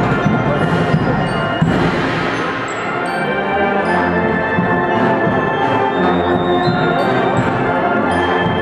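Guatemalan procession band playing a festive son, with brass and percussion.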